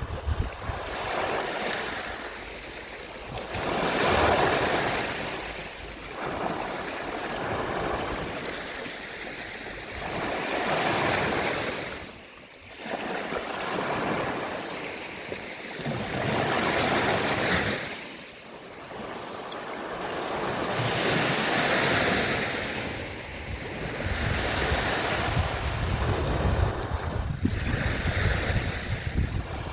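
Gentle sea waves washing onto a shore, the surf swelling and fading every three to four seconds. A low wind rumble on the microphone is strongest near the start and end.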